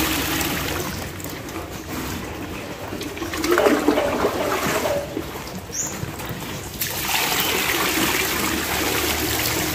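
Piglets eating soaked bran mash from a trough: continuous wet slurping and chewing.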